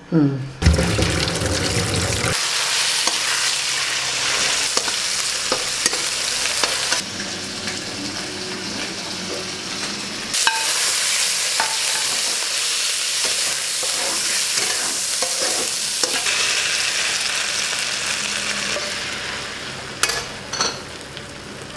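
Hakka noodles stir-frying in a wok: a steady sizzle, with a spatula tossing the noodles and now and then clicking against the pan.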